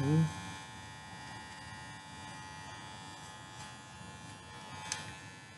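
Corded electric dog-grooming clippers running with a steady buzzing hum as they shave a small dog's long coat, with a short sharp tick near the end.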